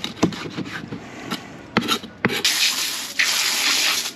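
A string of quick scraping strokes as a fish is scraped clean, then, a little past halfway, a loud rush of running water that breaks off briefly near the end.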